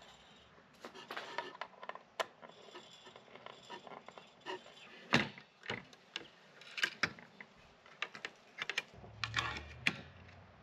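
Irregular clicks, knocks and clinks of small metal hardware being handled as folding shelf brackets are fitted with bolts.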